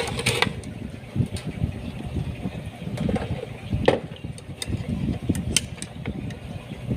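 Scattered light clicks and knocks of a car's fuel pump assembly parts being handled and fitted together, including its spring, over a steady low background rumble.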